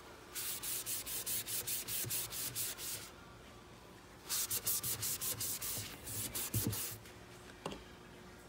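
Paper towel rubbed quickly back and forth over a waxed, painted wooden cabinet, wiping back excess black wax: three runs of fast strokes, about five a second, with short pauses between.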